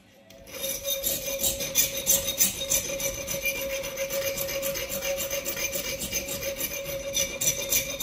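Hand file rasping back and forth on a steel can-opener blank cut from a saw blade, clamped in a bench vise. A quick, even run of scraping strokes starts about half a second in, over a steady tone.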